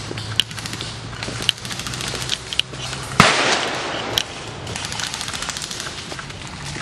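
Airsoft guns firing: scattered sharp single pops, one louder crack about three seconds in, then a rapid, even string of shots of automatic fire in the second half.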